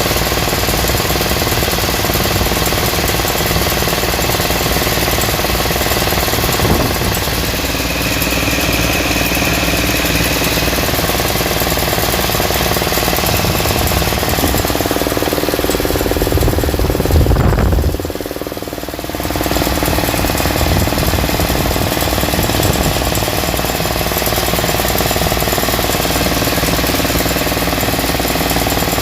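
A machine or engine running steadily and loudly, with a brief high tone about eight seconds in and a short lull near eighteen seconds.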